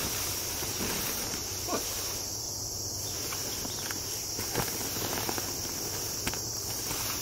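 Steady, high-pitched chorus of insects calling in late-summer woods, with a few faint ticks.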